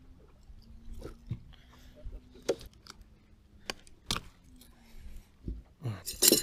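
Scattered small clicks and taps of a hooked bass being unhooked and handled on a boat deck, over a faint hum that comes and goes.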